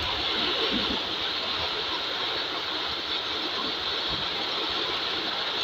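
Heavy rain falling steadily, an even hiss of drops on ground, puddles and roofs, with a low rumble underneath.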